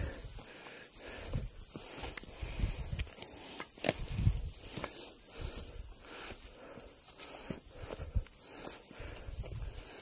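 A steady high-pitched insect chorus, with footsteps on grass and a dirt path scuffing and thudding unevenly beneath it and a few sharp clicks.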